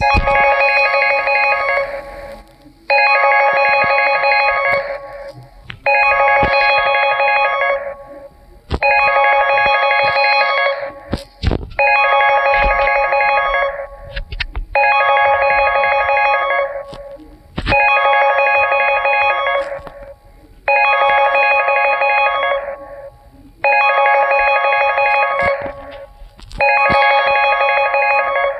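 Alcor mobile phone ringtone: a trilling, bell-like ring about two seconds long that repeats every three seconds, ten times. A few faint knocks fall in the gaps between rings.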